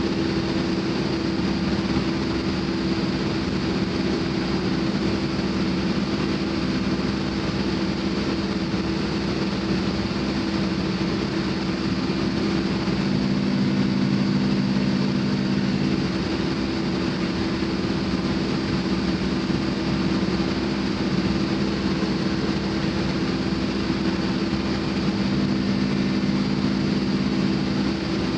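Case N Series backhoe loader's diesel engine running steadily, a constant drone whose pitch shifts slightly now and then as the machine works.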